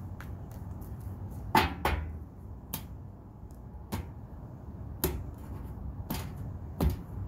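Tarot cards being handled: about seven sharp snaps and taps, irregularly spaced roughly once a second, the loudest about one and a half seconds in, over a low steady rumble.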